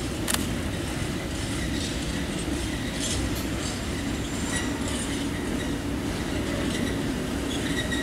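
SM42 diesel shunting locomotive running at low speed as it hauls open freight wagons past, with a steady engine rumble. Faint intermittent wheel squeal and occasional clicks from the wheels on the track.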